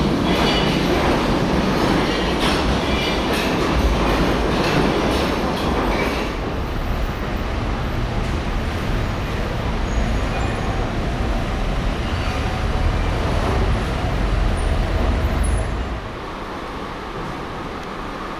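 Steady rumbling vehicle noise, with rattling clicks in the first few seconds. It drops in level about sixteen seconds in.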